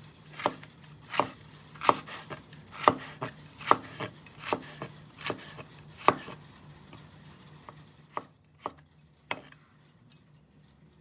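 Chinese cleaver chopping pickled vegetable slices into strips on a wooden cutting board. The blade knocks sharply on the board about every 0.7 s, then the strokes thin out and space apart after about six seconds.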